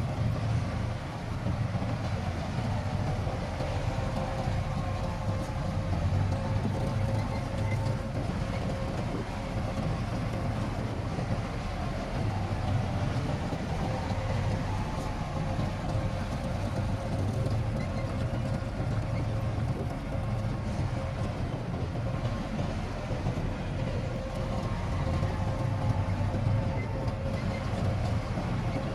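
Heavy diesel earthmoving machinery running steadily, a low engine drone with a faint steady whine above it.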